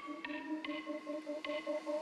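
Music: a quick melody of short, bright notes, about five a second, with no drums or bass.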